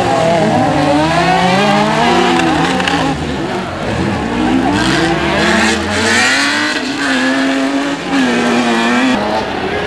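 Autocross buggy engines revving hard, several cars at once, their pitch rising and dropping again and again as they accelerate and back off.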